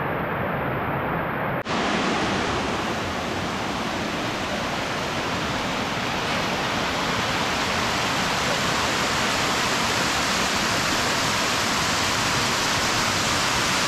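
Steady hiss of rain falling, a dense, even rush that starts abruptly about two seconds in, replacing a duller, muffled noise.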